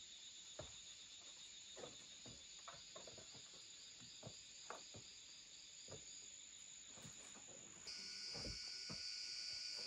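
Steady high-pitched drone of forest insects such as crickets, with scattered faint knocks and taps from climbing a bamboo pole ladder and handling wood. About 8 seconds in the insect chorus changes and becomes louder.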